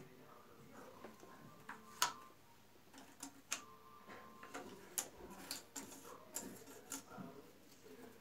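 Faint, irregular clicks and taps of jigsaw puzzle pieces being handled, set down and pressed into a framed puzzle board on a table, the sharpest about two seconds in.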